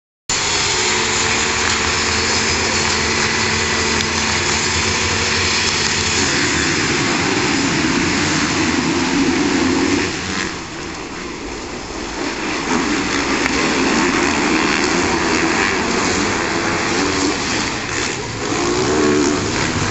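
A pack of motocross bikes at high revs, many engines together. For the first six seconds they hold a steady drone, then the sound turns rougher and shifting as they rev and pull away. It drops back for a couple of seconds around ten seconds in and swells again.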